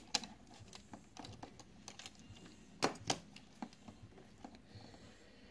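Scattered light clicks and taps of hard plastic as a knockoff Masterpiece Smokescreen transforming robot figure's arm joints and parts are moved and fitted by hand, with a few sharper clicks just after the start and two about three seconds in.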